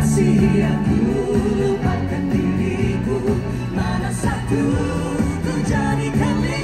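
Pop song performed live by singers on microphones over band backing, with a steady bass line under the vocals.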